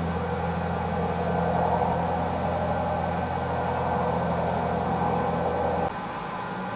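Steady mechanical hum made of several held tones over a low drone. About six seconds in, the low drone cuts out abruptly and a quieter hiss and hum remain.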